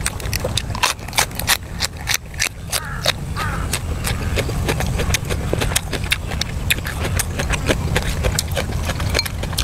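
Close-miked eating: a person chewing and crunching food, with many irregular crisp clicks and crackles several times a second over a steady low rumble.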